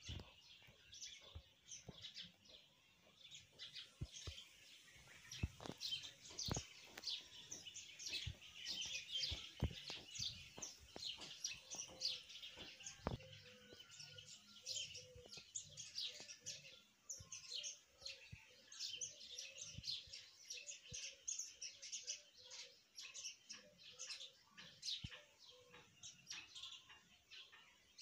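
Birds chirping quietly: a dense run of short, high chirps, with a few scattered faint clicks.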